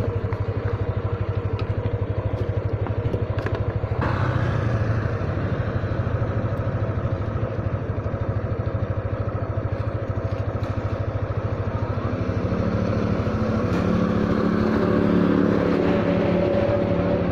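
Yamaha motor scooter's engine idling steadily with an even low pulse. A second, higher engine note builds over the last few seconds.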